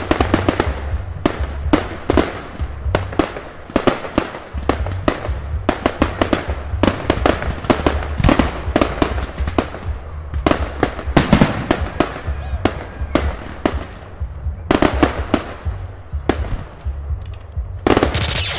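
Fireworks exploding: a dense string of sharp bangs and crackles, often several a second. Near the end they give way to a sustained hissing sweep.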